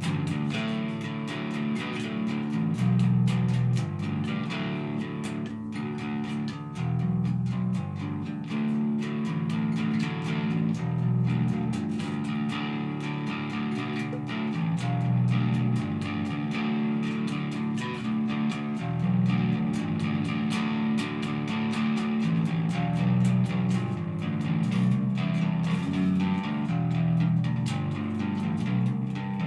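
Glarry GP (Precision-style) electric bass played without pause, plucked note after note in the low register, picked guitar-style rather than in a bass player's manner.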